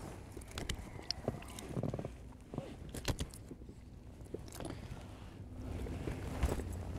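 Scattered light knocks and clicks from tackle and a just-landed whiting being handled in a small fishing boat.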